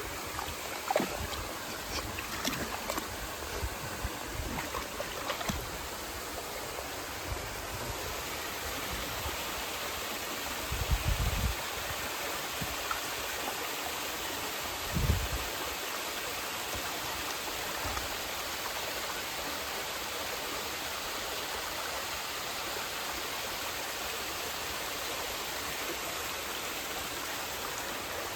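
Forest stream running with a steady rushing of water. A few low thumps break in, the loudest about fifteen seconds in, with scattered light clicks in the first several seconds.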